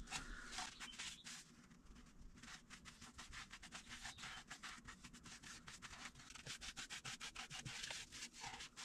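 Paper towel wiping sanding sealer onto a cherry bowl: faint, quick rubbing strokes of towel on wood.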